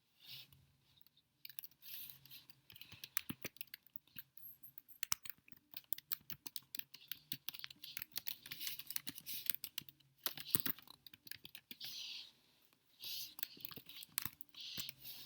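Typing on a keyboard: dense, irregular clicking of keystrokes, with a few short hissing sounds near the start and near the end.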